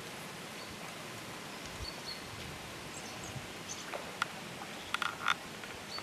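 Quiet outdoor ambience: a steady hiss with a few faint, short bird chirps, and a handful of sharp clicks from about four seconds in.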